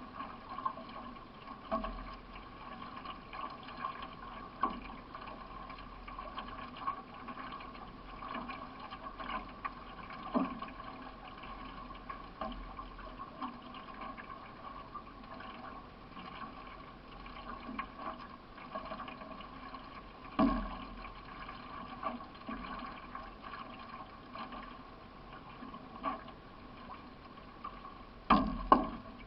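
Solo racing canoe being paddled: water washing and splashing along the hull with each stroke, over a steady hum, with a sharp knock every few seconds and a louder double knock near the end.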